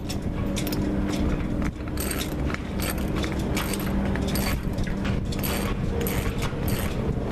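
Socket ratchet clicking in short irregular runs as it turns the nut on a homemade bearing puller, pressing the old strut bearing out of a propeller-shaft strut. A steady low hum runs underneath.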